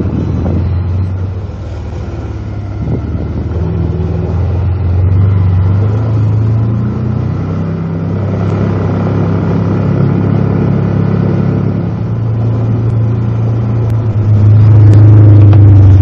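ATV engine running under way, its pitch shifting a little with the throttle and getting louder near the end.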